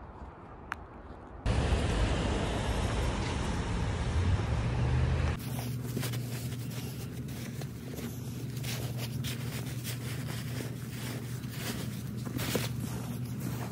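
Steady low drone of a running vehicle, with a constant hum under an even noise. It follows a few seconds of louder, rougher low rumble that starts and stops abruptly.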